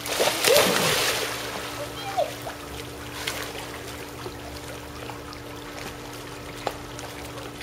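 A boxer dog splashing into a swimming pool off the steps, loudest in the first second, then water sloshing and lapping around it as it paddles. A steady low hum runs underneath.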